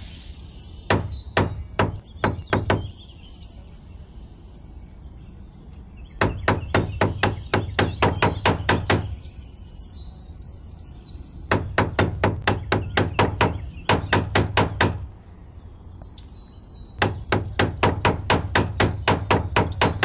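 Small wooden mallet tapping wooden stakes down into sand: runs of sharp, quick knocks, about five a second, in four bouts with short pauses between them.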